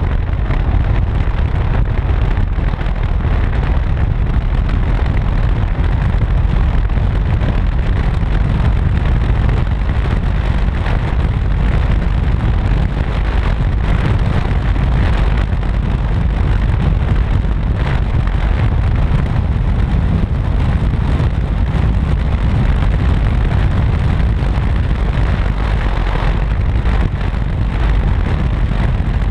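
Steady wind rumble on a microphone mounted outside a moving vehicle at road speed, with vehicle and road noise underneath.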